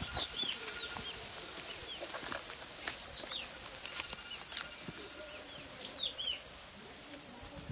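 Small birds chirping again and again in short, quick notes. Under them are scattered rustles and crackles of dry stubble and leaves underfoot, and twice a thin, high, steady whine lasting about a second and a half.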